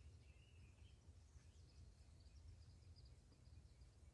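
Near silence: faint bird chirps over a low steady rumble.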